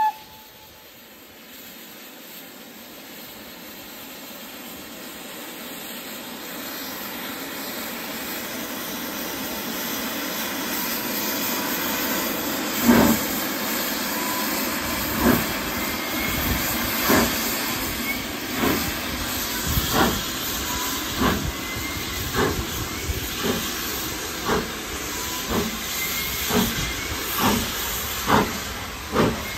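GWR Castle-class 4-6-0 steam locomotive 7029 Clun Castle pulling away with a train: a steady hiss of steam that grows louder. From about halfway through, a regular beat comes in and quickens as the train gathers speed.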